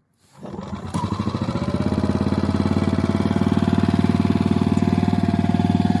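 Portable petrol generator, a 2,500 W range extender for an electric vehicle, starting up about a third of a second in and building over a second to a steady run.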